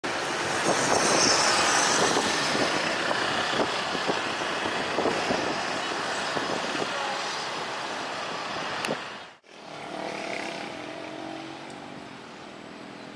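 Road traffic passing close by: small motorcycles and cars driving past. Their engine and tyre noise is loudest near the start. About nine seconds in, it breaks off abruptly and gives way to a quieter, steady background hum.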